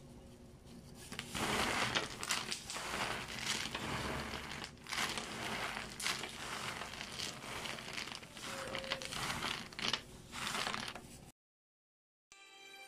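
Hands in thin plastic disposable gloves rummaging through a heap of baked cookies: irregular crinkling of the plastic and dry rustling of the cookies rubbing against each other. It stops a little over a second before the end, and soft background music starts near the end.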